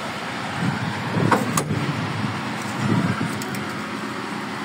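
Handling noises of getting into the cab of an old Škoda-LIAZ RT truck, over a steady background rumble: a sharp click about one and a half seconds in, with low thumps around it and again near three seconds, as the cab door is worked and someone climbs in.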